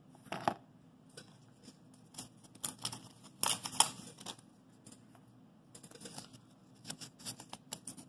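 Small clicks, taps and scratchy rustles from hands handling the plastic parts of a car's clutch safety switch on cardboard and picking up a piece of wet sandpaper. There is a short click about half a second in, a busy cluster around three to four seconds, and scattered ticks near the end.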